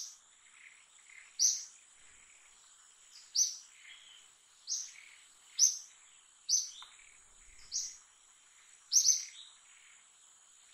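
A bird giving short, sharp, high chirps, each dropping in pitch, repeated about every second or so (two close together near the end), over a thin steady high-pitched tone.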